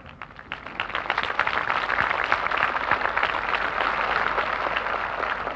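Large crowd applauding, many hands clapping at once, swelling in about half a second in and then holding steady.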